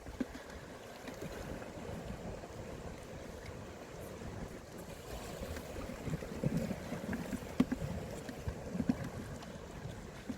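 Wind on the microphone over the wash of sea water, with a few low gusts between about six and nine seconds in.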